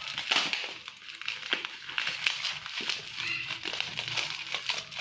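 Plastic courier bag and bubble-wrap packaging crinkling and rustling in irregular crackles as it is handled and pulled open.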